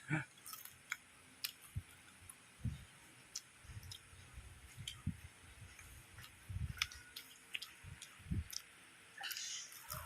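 A person eating, close to the microphone: faint scattered mouth clicks and soft low thumps of chewing, with a short noisier burst near the end.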